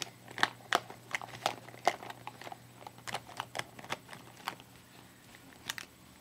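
Irregular light clicks and rattles of small makeup containers being rummaged through and handled, over a faint steady low hum.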